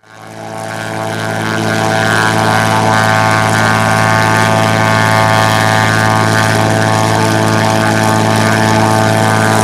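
Propeller-driven aircraft droning overhead: a steady, strongly pitched propeller drone that swells in over the first couple of seconds and then holds.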